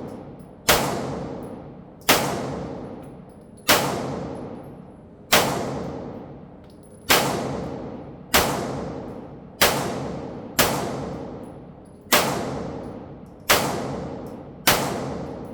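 Foxtrot Mike FM9 9mm AR-style pistol fired in slow semi-automatic shots, eleven in all, about one every second and a half, each followed by a long fading echo.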